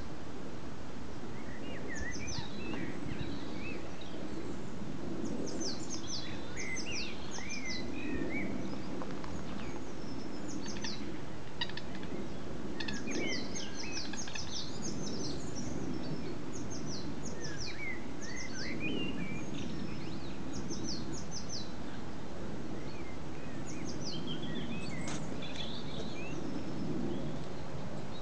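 Several wild birds chirping and singing, with many short, high, downward-sweeping notes and twittering phrases throughout, over a steady low background rumble.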